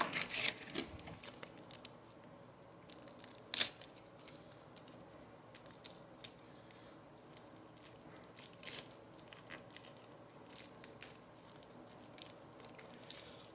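Baseball cards and their packaging being handled: scattered rustles, crinkles and light flicks, with a sharp snap about three and a half seconds in.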